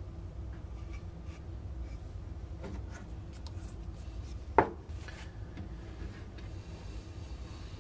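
Faint scraping and rubbing of a wooden stick spreading plastic wood filler into the eye socket of a wooden decoy head and scooping more from the can, over a steady low hum. A single sharp click about four and a half seconds in.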